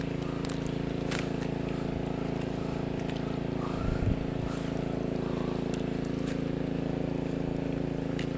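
Tractor engine running steadily at constant speed, driving a water pump that is draining a fish pond. A brief low bump sounds about four seconds in.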